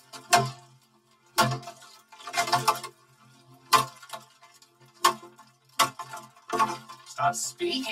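A plastic Tickle Me Ernie toy being smashed with a metal rod: about eight sharp clattering knocks, roughly one a second. Each knock has a short ringing tail, layered with pitch-shifted copies so it sounds like a chord.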